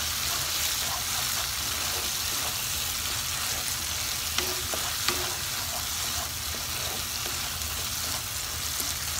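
Spice paste sizzling steadily as it fries in a non-stick pan, with a spatula stirring and scraping it around; the masala is being browned. Two sharp clicks come about halfway through.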